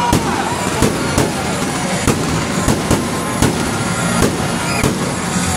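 Aerial fireworks bursting overhead: a quick, uneven series of sharp bangs, about two a second, over a steady background din.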